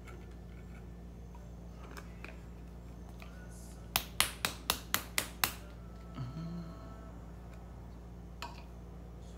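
A quick run of seven sharp taps, about four or five a second, over a faint steady low hum.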